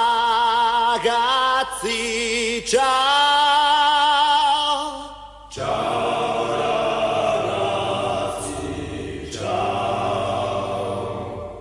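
Sung vocal music: a voice holds long notes with strong vibrato, with short breaks between phrases. About five and a half seconds in, it switches abruptly to a fuller, denser sustained passage.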